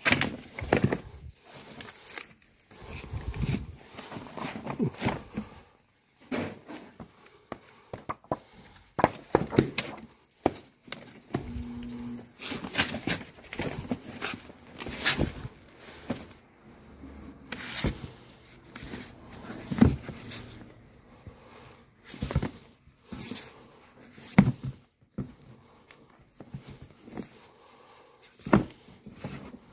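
Books being handled in a cardboard box: picked up, slid against each other and set back, giving irregular knocks, scrapes and paper rustles.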